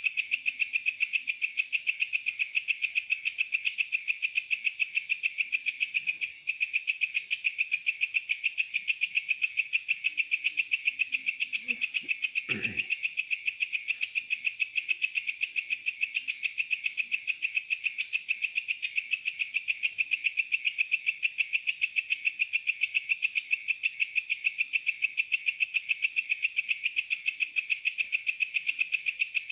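Night insect chorus: a dense, high-pitched trill pulsing rapidly and evenly, with one brief lower sound about twelve and a half seconds in.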